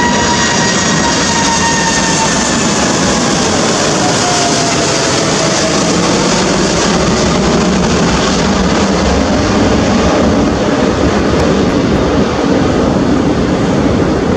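Boeing 747-8F freighter's four GE GEnx-2B turbofans at takeoff thrust as it climbs away: a loud, steady jet roar with a whine that slowly falls in pitch over the first several seconds.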